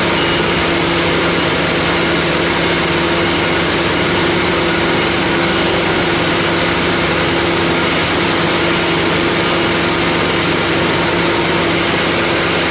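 An engine or motor running steadily, with a constant hum that holds the same pitch throughout.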